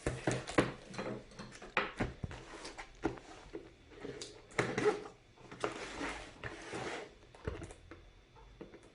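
A cardboard keyboard box being opened by hand: irregular scraping and rustling of cardboard and packaging, with light knocks and clicks.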